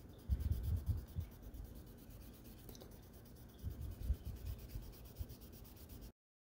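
Fine 6000-grit wet sandpaper rubbing across the clear-coated plastic body of a scale model car in short side-to-side strokes, in two spells of scuffing, before the sound cuts off suddenly near the end.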